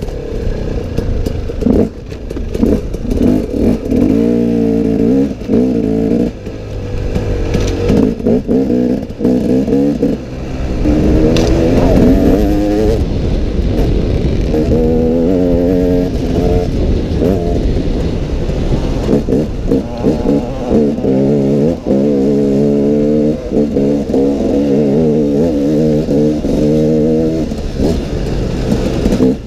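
Husaberg TE 250 two-stroke enduro engine under way, its pitch rising and falling again and again as the throttle is opened and closed over rough dirt track. A low rumble of wind on the microphone runs underneath.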